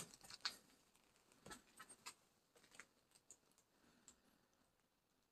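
Near silence with a scattering of faint, brief clicks and taps, a little louder in the first two seconds and thinning out toward the end.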